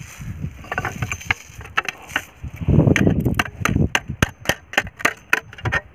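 A wooden stick tapping the edge of a thin tin-can sheet held against a rock, folding it over. There are a few scattered taps at first, then a quick even run of about four taps a second through the second half.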